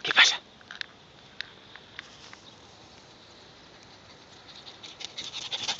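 A scuffing crunch on dry dirt about a quarter second in, then a few light clicks. Near the end comes quick patter that grows louder: the paws of a young Podenco Andaluz–Ratonero Valenciano cross running up over the dirt track.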